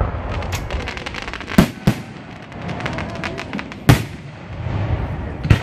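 Aerial fireworks bursting: four sharp loud booms, a pair about a second and a half in, one near four seconds and one at the end, over continuous crackling and popping.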